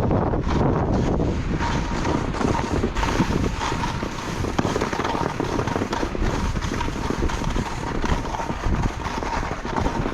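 Heavy wind buffeting the microphone, with skis scraping and chattering through heavy, wet snow on the descent.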